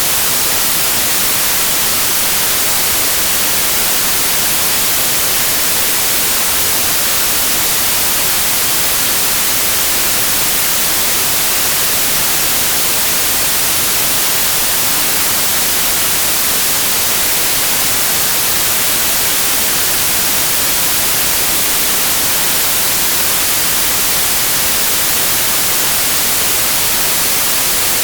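Steady, loud white noise: an even, unchanging hiss across the whole range, heaviest in the highs, played as a tinnitus masker.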